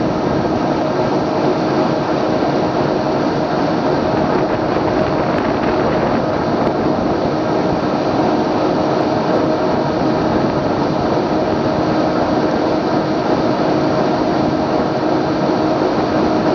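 Steady drone of a boat's engine heard on board while under way, a constant hum over a broad rushing noise with no change in speed.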